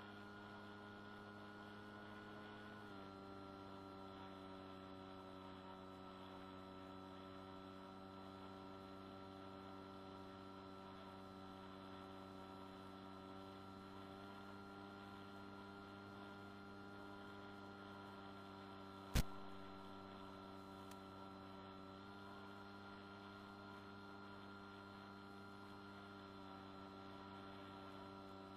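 Electric motor and propeller of a Swift II FPV model aircraft in flight, heard faintly through its onboard microphone: a steady pitched hum with several overtones that drops slightly in pitch about three seconds in. A single sharp click about two-thirds of the way through.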